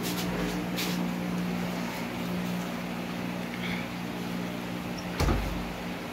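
Steady low electrical hum from a running household appliance, with a single thump about five seconds in.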